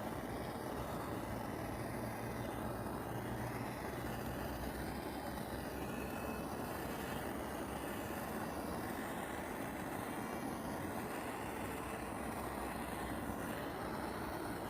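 Handheld torch flame burning steadily on wood, a continuous rushing noise that does not change.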